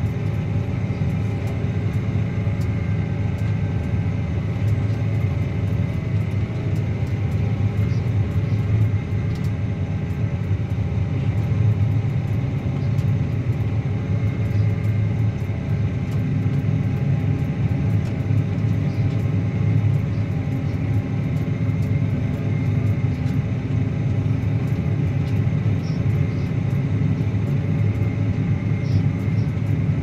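Claas Axion 850 tractor's six-cylinder diesel engine running steadily under load while pulling a reversible plough through the soil, a constant deep rumble.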